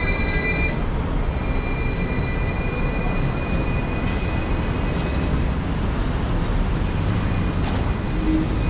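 Hong Kong double-decker electric tram running along its rails with a steady low rumble. A thin high-pitched whine comes and goes over it.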